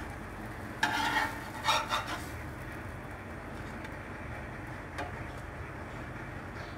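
Spatula scraping against a frying pan and plate as bread omelette slices are lifted out: two short scrapes about a second in, then a light click near five seconds, over a steady low hum.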